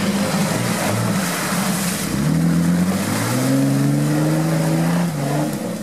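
Jeep Wrangler's diesel engine working hard off-road. The revs climb about two seconds in, hold high, then ease off near the end.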